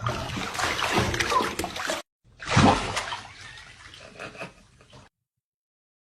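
Water splashing and sloshing, broken off by a sudden cut about two seconds in before a second stretch of splashing.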